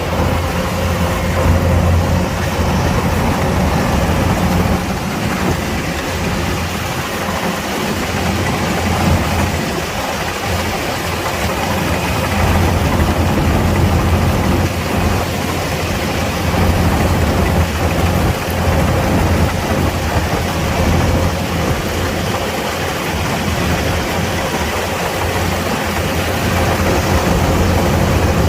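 Kubota DC-105X combine harvester running steadily while harvesting rice: a constant low engine drone with a rushing noise over it.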